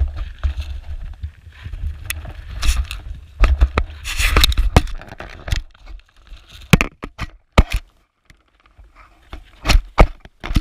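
Sheep nosing and feeding right at a ground-level camera set among grain: rough scraping, knocks and sharp irregular clicks as their muzzles and teeth work the grain and bump the camera. A low rumble runs under the scraping for about the first five seconds, then gives way to sparse sharp clicks.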